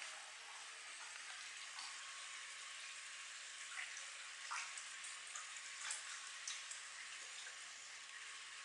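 Koi pond water trickling in a steady hiss, with small splashes and plops at the surface now and then through the middle of the stretch.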